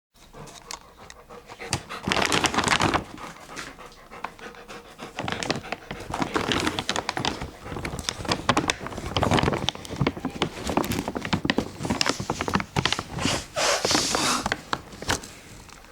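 A dog panting, in loud bouts a second or two long, with scattered sharp clicks between them.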